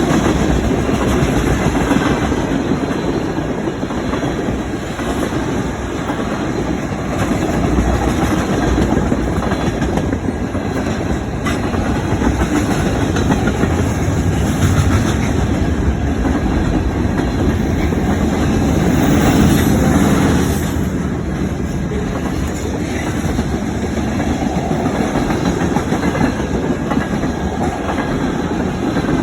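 Freight cars of a passing CN mixed freight train rolling by on the rails with a steady rumble and rattle, swelling slightly about twenty seconds in.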